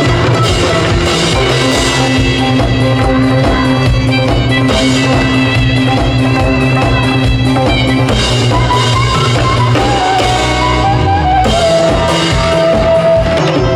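Instrumental break of an upbeat trot song: the backing band plays a steady drum-kit beat and bass under a melody line, which turns to a wavering, vibrato-laden lead in the last few seconds.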